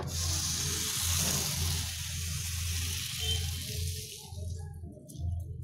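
Appam batter sizzling in a hot non-stick appachatti as the pan is swirled, a loud hiss that fades away over about four seconds. A low steady hum runs underneath.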